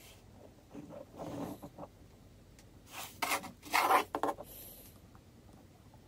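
Hands handling small metal clips and a plastic housing, making a few short rubbing and scraping bursts, the loudest around the middle.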